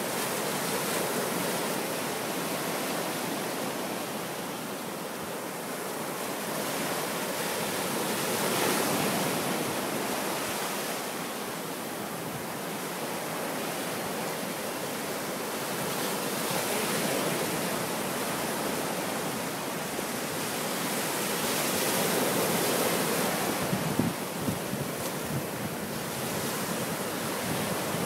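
Ocean surf breaking and washing up the beach, rising and falling in slow surges every several seconds. A few short light knocks near the end.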